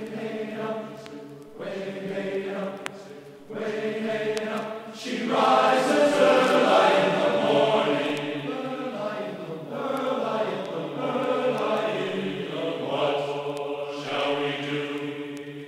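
Sea shanty sung by a group of voices, louder from about five seconds in.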